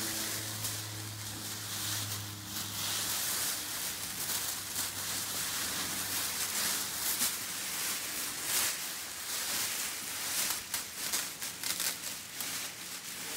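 Large clear plastic bag being pulled off a bench milling machine and bunched up. It makes a continuous crinkling rustle with many sharp crackles.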